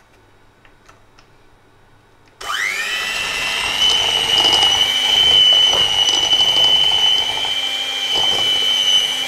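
Electric hand mixer switched on about two and a half seconds in, its motor whine rising quickly to a steady high pitch as the beaters cream butter and sugar.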